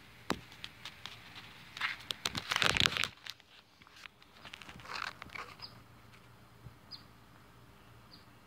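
Leaves and twigs of a shrub rustling and crackling as foliage is brushed aside, with a few clicks first and the loudest rustling about two to three seconds in. A softer rustle follows about five seconds in, then a few faint, very short high chirps.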